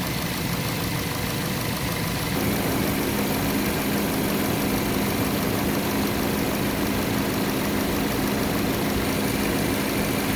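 Ford Fusion engine idling steadily. About two seconds in, a steady low hum joins and the overall level rises slightly, then both hold.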